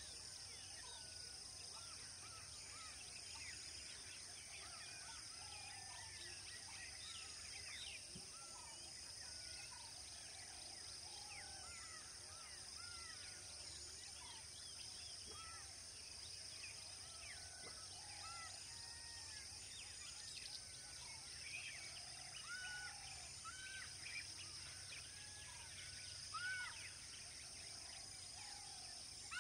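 Faint wild outdoor ambience: many birds calling with short chirps and arched whistles throughout, over a steady high-pitched insect drone.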